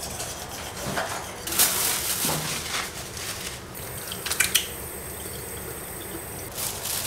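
Bathroom sink tap running into a small basin, with water splashing as hands rinse and wash the face after brushing the teeth.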